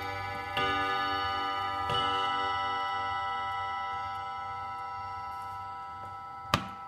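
German URGOS pendulum mantel clock striking: two more strikes about a second and a half apart, each ringing on and slowly fading, with the clock ticking underneath. A single sharp click near the end.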